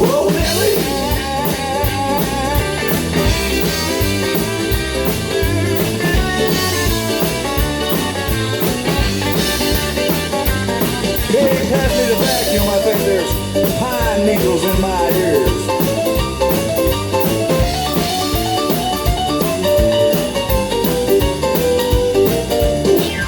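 Rockabilly-style band music: electric guitar over a steady drum-kit beat, with no singing.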